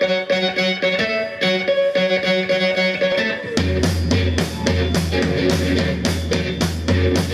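Live garage punk: an electric guitar plays a repeating riff alone, then about halfway through the drums come in with a steady beat and the band plays on at full volume.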